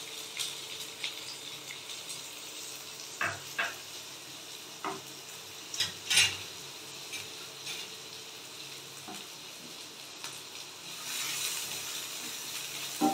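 Chopped onion and green chillies sizzling in hot oil in a pan. A utensil knocks and scrapes against the pan several times between about three and six seconds in, and the sizzle grows louder near the end.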